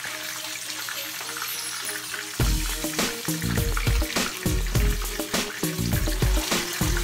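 Food sizzling in hot oil in a frying pan, with light clicks of metal tongs against the pan as the pieces are turned. Background music with a steady beat comes in about two and a half seconds in.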